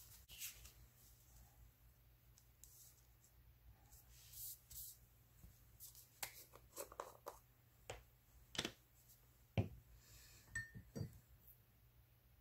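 Faint handling of thin paper napkin and paper: brief soft rustles and a little tearing, with scattered light clicks and knocks as a jar of collage medium is opened and set down. The loudest knock comes about nine and a half seconds in.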